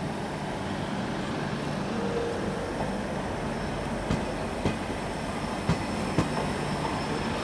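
ÖBB railjet passenger coaches rolling past: a steady rumble and hum, with a few sharp wheel knocks over rail joints about four to six seconds in.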